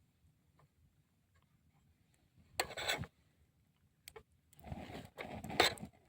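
Short bursts of rubbing and rustling with a couple of sharp clicks, as things are handled: one brief burst about halfway through, then a longer stretch near the end.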